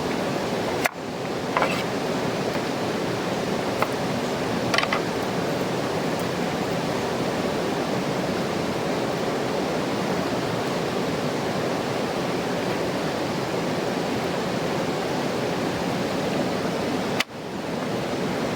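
Mountain river rushing, a steady even rush of flowing water, with a few faint clicks in the first five seconds. The sound drops out for an instant about a second in and again near the end.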